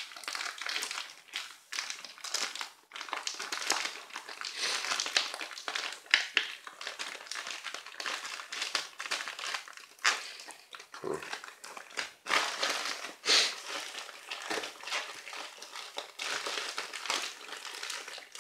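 Plastic mailer bag crinkling and rustling in irregular bursts as it is cut open with a knife and the wrapped contents are pulled out.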